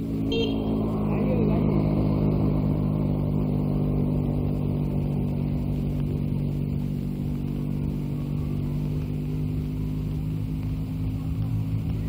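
A steady engine drone that holds one pitch, with no rise or fall.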